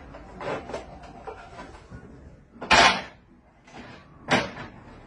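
Handling sounds at a balloon-stuffing machine as balloons are pushed in through its top: a few short rubbing, scraping noises, the loudest a brief rush near the middle and another about a second and a half later.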